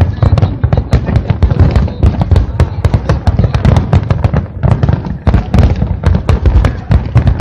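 Aerial fireworks bursting in rapid, overlapping succession, many sharp bangs and crackles a second over a continuous low rumble.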